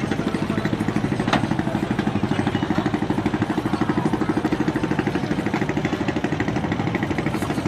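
Small engine idling with a steady, rapid chugging, and a sharp click about a second and a half in.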